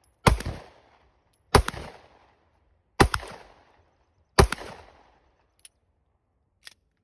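Four pistol shots, evenly paced about a second and a half apart, each followed by a short fading echo, then two faint clicks near the end.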